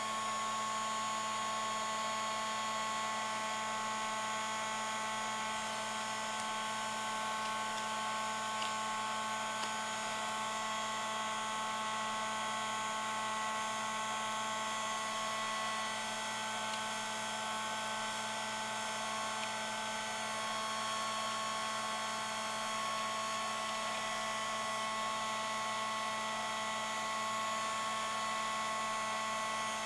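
Craft heat tool (embossing heat gun) running steadily, its fan blowing hot air with a constant hum and a high whine.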